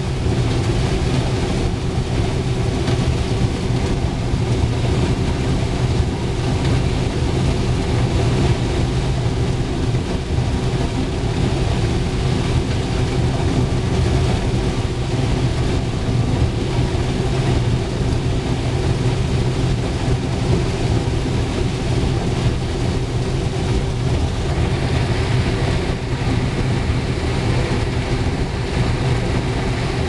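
International 1480 axial-flow combine running steadily under load while harvesting corn, heard from inside the cab: an even drone of the engine and machinery with a steady low hum.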